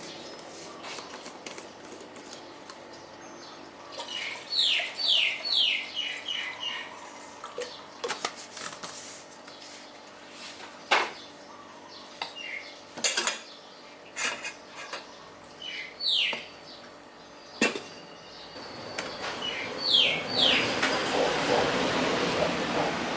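Cups, kettle and utensils clinking and knocking now and then during drip-coffee making, while birds chirp in quick falling notes in the background. A hissing rush builds up near the end.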